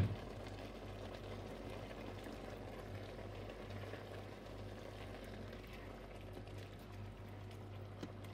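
Squid simmering in its own liquid in a stainless steel pot, a steady bubbling hiss, while a wooden spoon stirs the pieces. A sharp knock right at the start.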